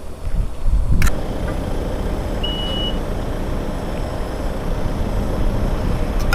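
Motorcycle riding noise: engine rumble and wind rush on the rider's camera, steady throughout. A click about a second in and a single short high beep about two and a half seconds in.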